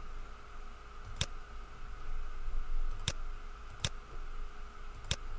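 Four computer mouse button clicks: one about a second in, two close together around the middle, and one near the end. A steady faint hum runs underneath.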